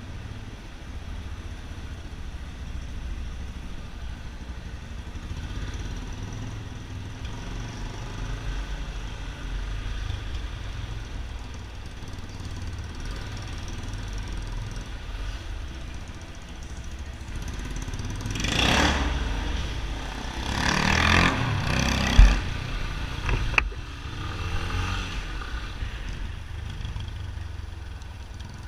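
Yamaha XTZ 250 Ténéré's single-cylinder four-stroke engine running through a Roncar 2WAY aftermarket muffler, idling low and steady, with two louder, rougher surges a little past the middle; the second ends in a sharp crack.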